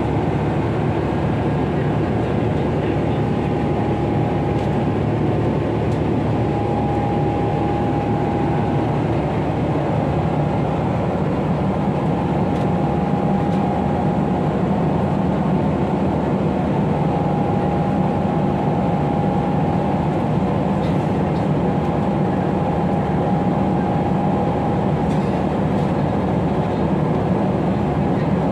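Steady cabin noise aboard a Boeing 777-300 airliner: a dense, unbroken rumble, with a faint high steady tone that drops in and out.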